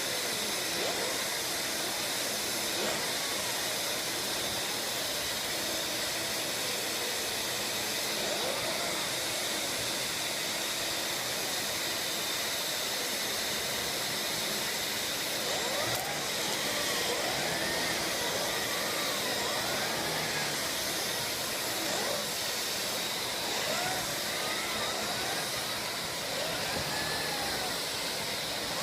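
Household vacuum cleaner running steadily with a continuous whooshing hiss. From about halfway in, short faint rising-and-falling pitched sounds come and go over it.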